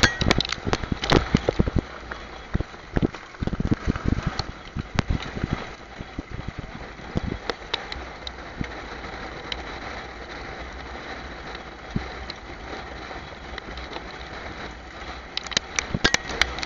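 A harness-racing sulky rolling behind a trotting horse, with wind on the microphone: a steady rushing noise with irregular knocks and rattles, heavier in the first few seconds and again near the end.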